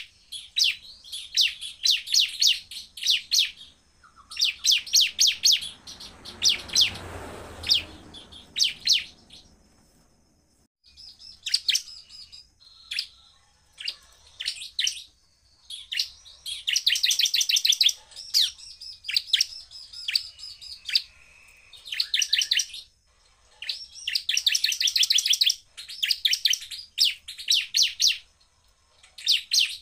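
Bar-winged prinia (ciblek) singing in rapid-fire volleys of sharp, fast-repeated high notes, each volley about one to two seconds long, with short pauses between. About six seconds in, a brief rushing noise sounds under the song.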